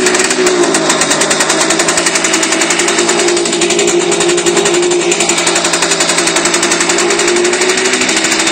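Simson KR 51/2 Schwalbe moped's single-cylinder two-stroke engine running steadily at idle with a fast, even beat, its pitch wavering only slightly.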